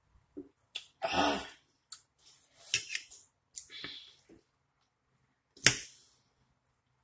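Close-up eating sounds: a series of short smacks and clicks as she finishes a drink from a can and then picks at her plate, ending in a fork clicking against it. The loudest single sound is a sharp click a little over a second before the end.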